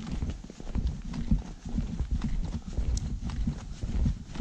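Footsteps on a dirt forest trail: a steady run of dull, irregular thuds.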